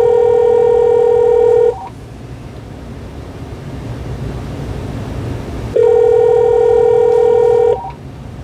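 Telephone ringing twice, each ring about two seconds long and four seconds apart: a steady low tone with a warbling higher pair of tones over it. This is the call ringing through to the AT&T 5655 answering system.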